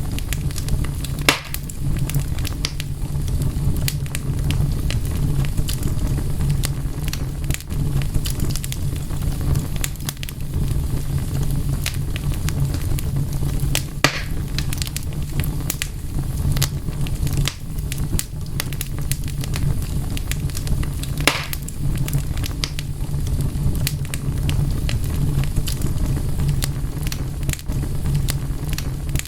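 Wood fire burning with a steady low rumble and frequent irregular crackles, broken by a few sharper pops.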